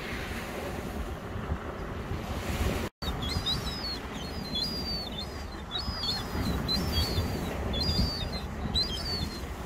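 Low wind and surf rumble, then from about three seconds in a series of short, high, thin, wavering calls, about two a second, from a juvenile herring gull begging from an adult.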